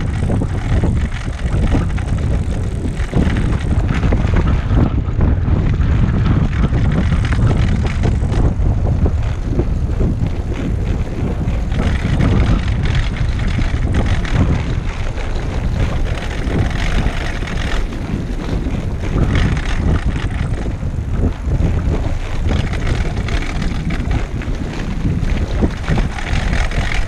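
Wind rumbling on a GoPro's microphone while a recumbent trike rolls along a rough dirt trail, with the crunch and rattle of tyres over the bumps.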